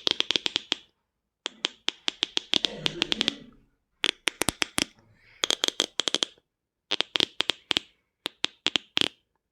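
Beatboxer's mouth percussion: rapid tongue and lip clicks, about ten a second, in six short runs with brief pauses between them.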